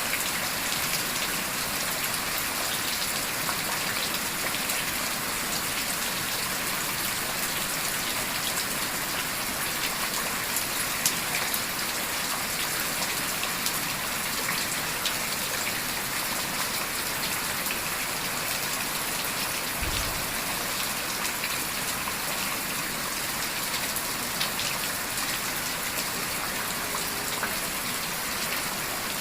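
Heavy rain falling steadily, an even hiss with scattered drops. A few brief light clicks break through, and there is a dull thump about twenty seconds in.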